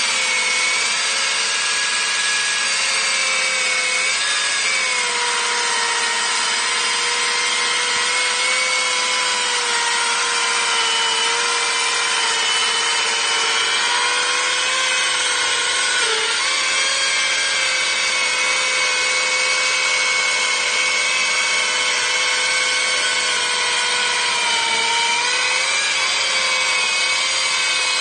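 ICS 890 two-stroke petrol concrete chainsaw running at high revs with its diamond chain cutting into a concrete wall, water-fed. The engine note holds steady under load, dipping briefly a few times as the chain bears harder into the cut.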